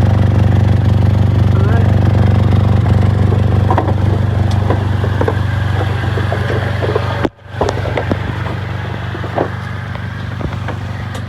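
2006 Honda Accord 2.4-litre four-cylinder idling with an exhaust leak, heard from underneath the car: a steady low exhaust note with fine rapid pulsing. The leak comes from a metal rod welded on as catalytic converter theft protection. The sound cuts out briefly about seven seconds in, then continues slightly quieter, with a few small clicks.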